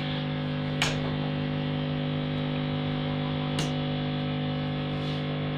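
Homebuilt high-gain tube guitar amplifier, built with 1930s AF7 and AL4 tubes, idling with a steady mains hum and buzz rich in overtones. Two faint clicks come about a second in and about two-thirds of the way through.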